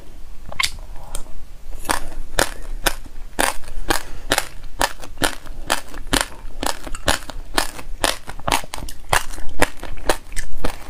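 Passionfruit seeds and raw white sesame seeds crunching as they are chewed: a fast run of sharp cracks, about three or four a second, thickening about two seconds in.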